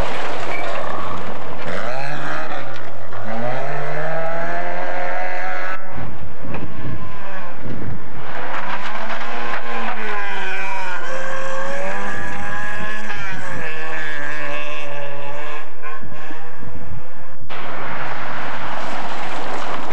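Rally cars, among them a Ford Escort Mk2, passing at speed one after another on a gravel forest stage. The engines rev hard, their pitch climbing and dropping through gear changes, with bursts of gravel noise from the tyres as the cars go by.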